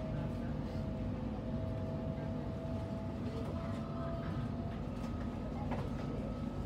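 Inside a Sydney Trains Millennium electric train carriage: a steady low rumble with a steady electric whine from the train's equipment, and a single click about six seconds in.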